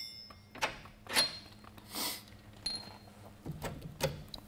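Scattered light clicks and knocks of metal suspension hardware being handled as the bolt holding the tie rod joint to the spindle is taken out, with a metallic ring dying away at the start. A faint steady hum sits underneath.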